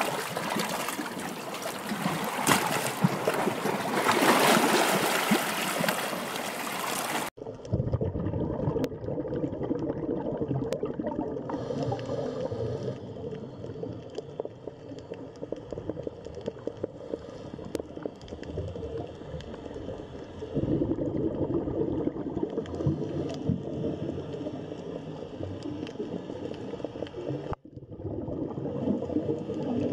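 Water noise with no music or voice: a bright, rushing trickle-like water sound for about the first seven seconds, then an abrupt cut to a duller, muffled underwater water noise, with a brief dropout and another cut near the end.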